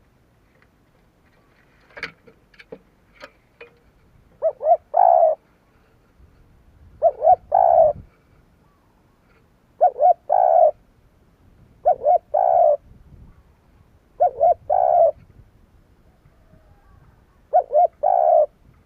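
Spotted dove cooing its song: six repeated phrases about every two and a half seconds, each two short notes followed by a longer one. A few sharp clicks come about two seconds in.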